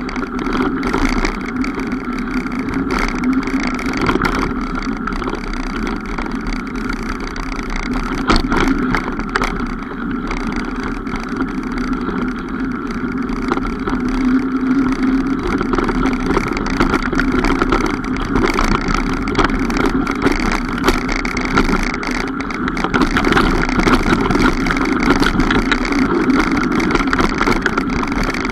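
Mountain bike being ridden along a trail: a steady rushing noise with many small clicks and rattles over it throughout.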